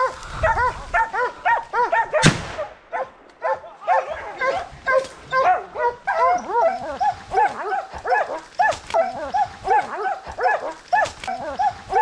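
A pack of hunting dogs barking hard and continuously at a wild boar they are holding at bay, several dogs overlapping in quick repeated barks. There is a single sharp crack a little over two seconds in.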